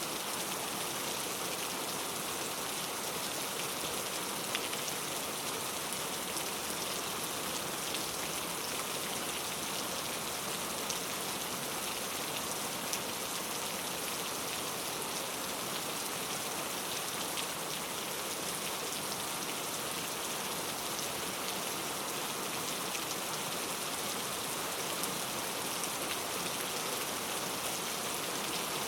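Steady rainforest rain: an even hiss of falling rain, with now and then a louder single drop ticking out of it.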